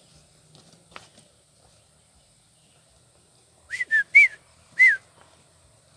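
Four short whistled notes in quick succession, a little past the middle, each rising and then falling in pitch.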